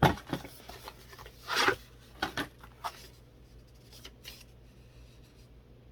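Cardboard packaging handled and turned over: a few short rubs and scrapes, the loudest about a second and a half in, over a faint low hum.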